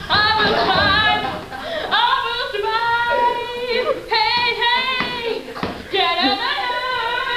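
A girl singing loudly and unaccompanied, holding long notes of a second or two that waver slightly in pitch.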